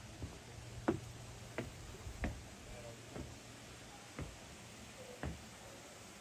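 Footsteps climbing porch steps and crossing a porch deck: about six soft thuds, roughly one a second.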